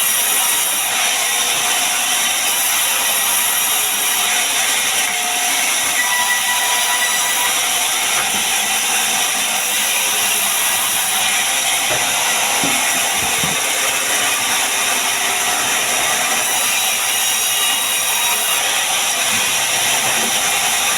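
Hand-held power tool running steadily as it cuts or shapes wood, a continuous high hiss with no pauses.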